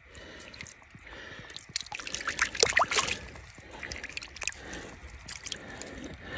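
A freshly removed deer heart being handled by hand over leaf litter: wet, dripping handling sounds with irregular crackles of leaves, loudest about halfway through.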